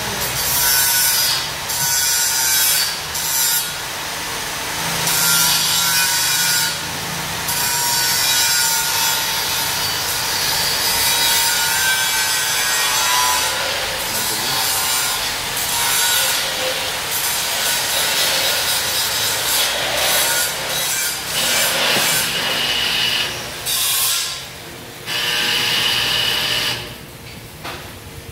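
An electric grinder working on steel: a loud, harsh continuous scraping with a wavering whine, easing off near the end.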